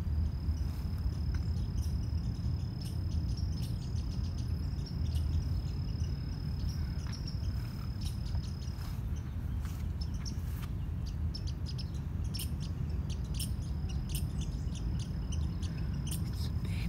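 Outdoor ambience under a steady low rumble: a high, even insect trill runs, stops about halfway, and comes back near the end, with scattered short chirps and clicks.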